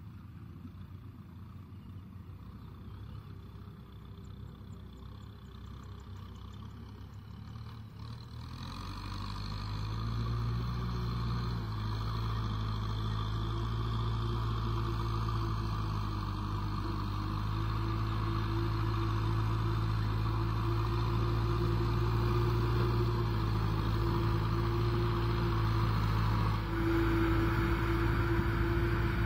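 Kubota M6040SU tractor's four-cylinder diesel engine running steadily under load while pulling a disc harrow through mud. It is faint at first, then grows louder from about a third of the way in as the tractor comes close, and stays loud to the end.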